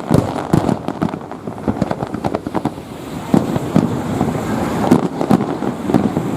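Fireworks display: an irregular string of bangs from bursting aerial shells, some in quick clusters, mixed with crackling.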